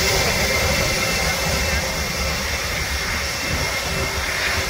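Twin jet engines of a JetBlue airliner running at taxi power as it swings onto the runway. A steady roar with a faint whine that eases slightly over the seconds.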